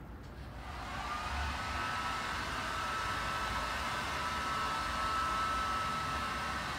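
Steady rushing hiss of hotel room background noise. It swells in over about a second and then holds, with a faint high steady tone running under it.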